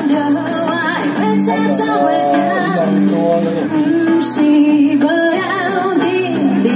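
A live pop song amplified through a PA: a woman singing with acoustic and electric guitars.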